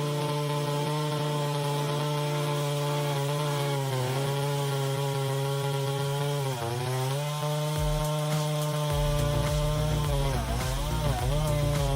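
Echo CS-800P two-stroke chainsaw running at high revs and cutting, its engine pitch dipping briefly a couple of times as it loads up in the cut. A deeper rumble joins in over the last few seconds.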